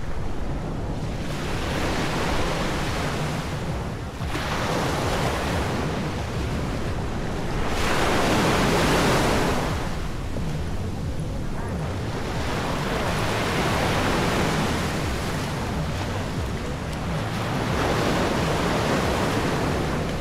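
Waves breaking and washing up the beach, the surf swelling and fading every few seconds, with a low rumble of wind on the microphone.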